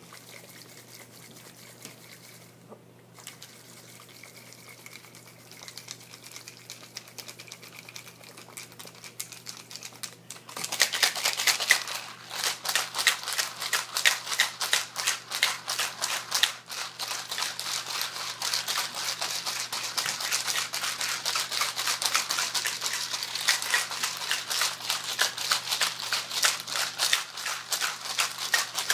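Ice and salt rattling inside a plastic Ice Cream Magic shaker ball that is shaken hard by hand, a rapid continuous rattle. It is faint at first and gets much louder about ten seconds in, the first stage of churning the ice cream.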